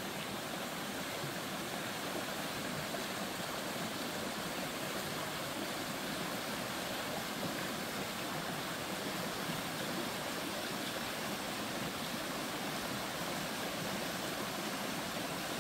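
Steady rushing noise, even and unbroken, with no distinct events.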